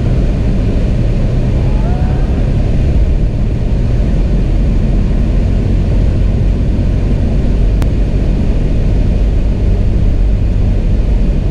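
Steady low rumble of a Toyota FJ Cruiser heard from inside the cab: engine and road noise with no change in pitch, and a single faint click about eight seconds in.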